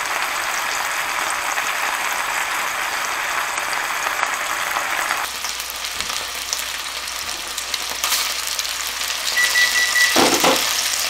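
Boneless chicken breasts frying in oil in a nonstick skillet, a steady sizzle as the second side browns. A couple of sharp knocks about ten seconds in.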